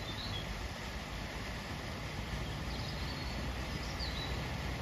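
SUV wading slowly through deep floodwater: a steady wash of water with a low engine rumble that grows a little louder near the end as it approaches. A few short bird chirps sound over it.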